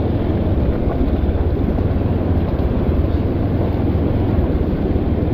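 Motorcycle engine, likely a Honda Hornet 2.0's single-cylinder, running steadily as the bike rides over a rough stony track, with a steady rushing noise over it.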